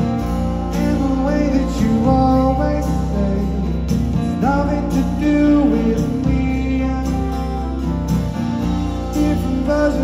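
A live rock band playing a slow song: strummed acoustic guitar, electric guitar and keyboard, with a man singing lead.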